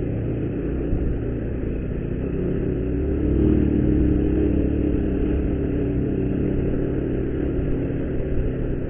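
Motorcycle engine running steadily under load as it climbs a steep street, getting louder about three seconds in.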